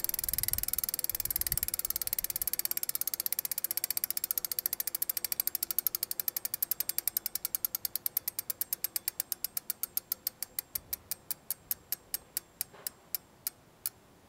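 Rapid ratchet clicking that slows steadily and fades, like a ratchet mechanism spinning down, ending at about two clicks a second.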